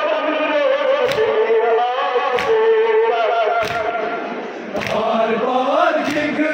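Crowd of men chanting a Muharram noha (lament) in unison, with a sharp slap of chest-beating (matam) about every 1.2 seconds keeping time.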